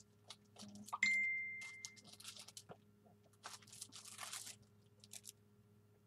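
Rustling and light clicking of craft supplies being handled. About a second in, one sharp ding rings and fades over about a second.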